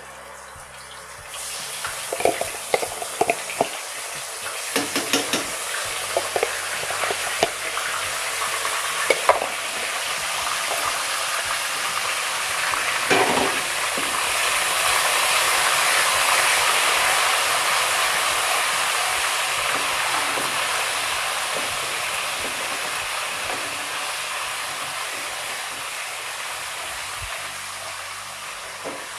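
Ginger-garlic paste frying in hot oil with whole spices in a kadai, sizzling hard as it is stirred with a wooden spatula. The sizzle builds to its loudest around the middle and eases off toward the end. In roughly the first ten seconds there are sharp clicks and scrapes of the spatula against the pan.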